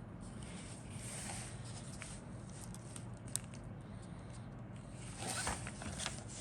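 Plastic bags and parts from a plastic model kit being handled, rustling and crinkling in uneven bursts. There is a sharp click about three and a half seconds in, and the rustling gets busier near the end. A steady low hum runs underneath.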